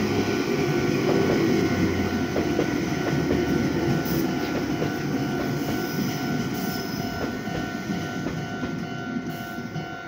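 Red Meitetsu electric train passing over a level crossing, its wheels clacking over the rail joints. It is loudest in the first couple of seconds and eases off as the cars go by, with the crossing alarm sounding a steady two-tone ring over it.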